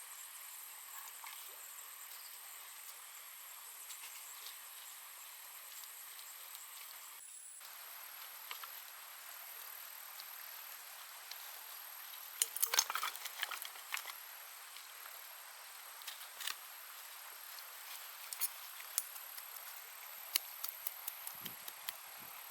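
Steady high-pitched chirring of forest insects, such as crickets, with a cluster of sharp clicks and crackles about halfway through and scattered single clicks after it.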